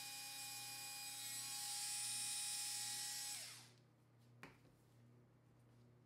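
Electric mixer motor running with a steady high whine, switched off about three and a half seconds in and spinning down, then a single sharp click about a second later.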